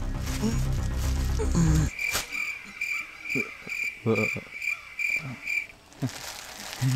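Background music with a heavy bass line cuts off abruptly about two seconds in. Insect chirping follows, a steady high pulse about three times a second, which stops near the end.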